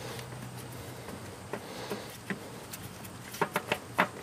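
Light clicks and taps of a hand gripping and turning a hand-tightened oil filter on a 1998 Nissan Frontier engine, scattered at first and coming in a quick run of louder clicks near the end.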